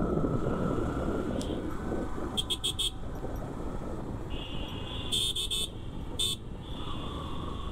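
Street traffic heard from a moving motorcycle: quick bursts of short horn toots, a cluster about two and a half seconds in and another around five to six seconds, over a steady rush of wind and road noise.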